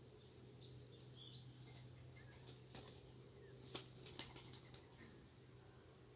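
Spotted dove's wings flapping in short claps against a near-silent background: a few about two and a half seconds in, then a quicker run around four seconds in.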